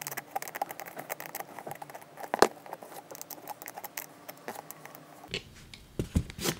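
Pliers tightening a steel nut onto a bolt through a plastic spring clamp: a quick run of small clicks and scrapes of metal on the nut and the plastic, with one sharper click about two and a half seconds in. A few louder knocks near the end.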